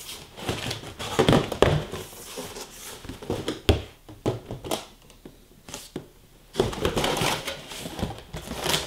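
Large cardboard box being handled and turned over on a table: irregular scrapes, rustles and knocks of the cardboard, quieter for a couple of seconds midway, then a longer stretch of rustling and scraping near the end.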